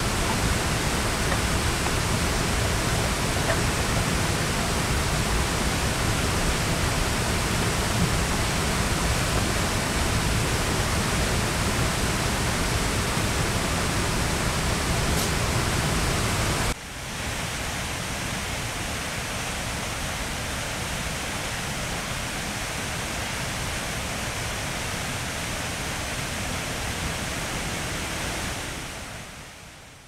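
Steady rushing of water, heard as an even hiss with a deep rumble. About 17 seconds in it cuts to a thinner, slightly quieter rush, which fades away near the end.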